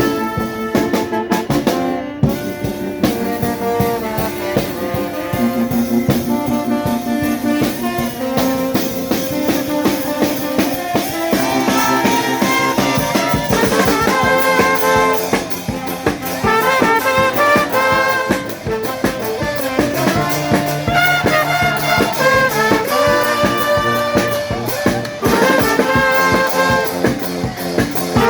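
A charanga street band playing live: trumpets, trombones and saxophones carry a tune over a drum beat.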